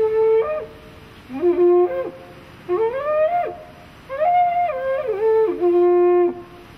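Handmade carnyx, a Celtic war trumpet, blown in four short phrases, its notes stepping and sliding between a few pitches. The last phrase is the longest, falling to a held low note near the end.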